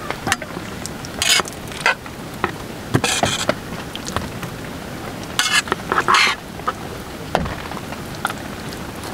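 Metal serving spoon scraping and clinking against a stainless steel camping pan as thick, saucy pasta and soya chunks are scooped out into a plastic bowl, in about five short scraping strokes with a few sharp clicks between them.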